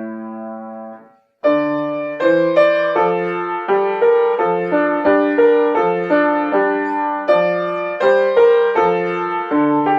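Solo piano. A held chord dies away into a brief silence about a second in, then the playing resumes with a steady run of bass notes and chords, about two strikes a second.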